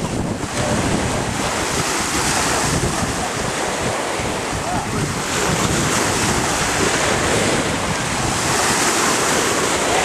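Small sea waves washing at the shore, with wind buffeting the microphone.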